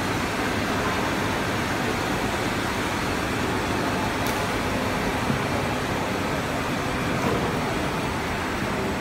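Steady, even running noise of an ABS-PC plastic sheet extrusion line in operation.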